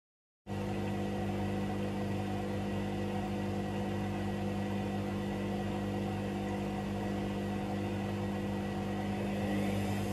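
A laundry machine's motor running with a steady hum. It starts abruptly about half a second in, and near the end a rising whine joins it as the machine speeds up.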